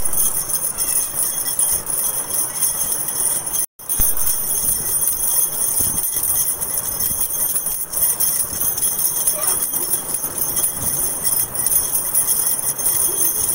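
A steady, high jingling shimmer of bells in an added backing track. It cuts out for a moment about four seconds in.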